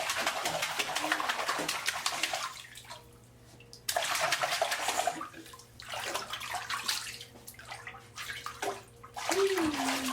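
Water splashing and pouring in a bathtub as a baby is bathed: a continuous stretch of splashing, a short pause, then shorter bursts that start and stop abruptly. A brief voice sounds near the end.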